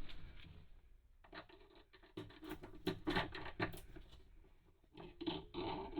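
Scraping and light clicking of hand work on the toilet's floor-flange hold-down bolts, in two bunches: from about one to four seconds in, and again near the end.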